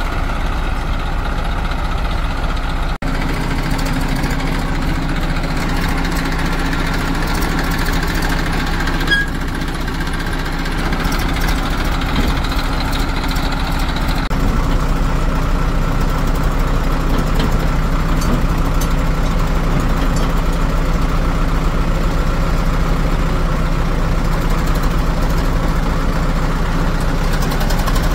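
Diesel engines of a backhoe loader and farm tractor running steadily, with a momentary dropout about three seconds in.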